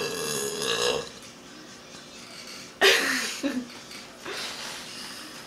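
A forced burp, about a second long, pitched and croaky at the start, then about three seconds in a second, shorter and noisier throaty sound.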